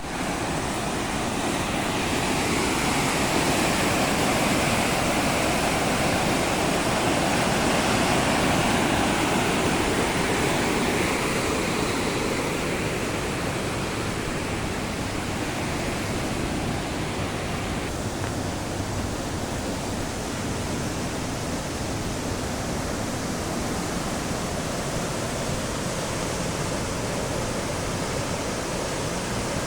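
Swollen river rushing over rapids after heavy rain: a steady, dense roar of white water, a little softer in the second half.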